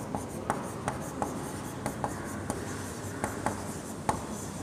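Chalk writing on a chalkboard: an uneven run of short taps and scrapes, a few a second, as the letters are written.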